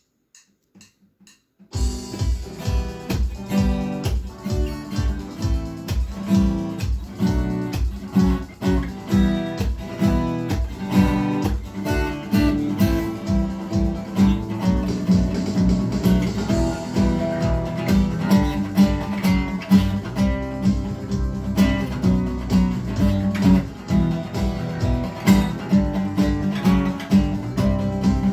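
Acoustic guitar strummed in a steady, even rhythm, starting about two seconds in after a few faint clicks.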